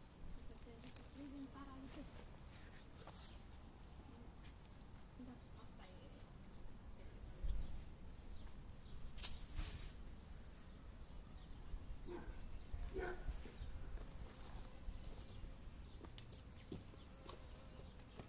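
A cricket chirping over and over in a high, even rhythm. There are a few soft clicks and rustles of soil and footsteps, and a low thump about seven seconds in.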